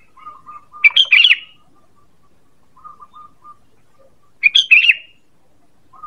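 Sooty-headed bulbul (kutilang) singing: two loud, bubbly phrases of quick notes, about a second in and again about three and a half seconds later. Softer, lower repeated notes come between them.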